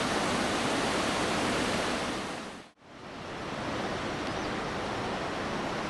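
Typhoon-driven surf breaking on the shore, with wind: a steady rushing noise of waves. It cuts out abruptly just before the middle and fades back in.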